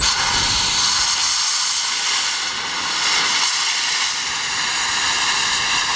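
Steam hissing hard and steadily from the Förstlingen replica steam locomotive, starting suddenly.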